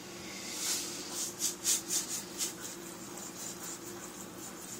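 Salt poured from a salt canister into a pot of water: a hiss about half a second in, then several short gritty pours over the next second or so, then a fainter steady trickle.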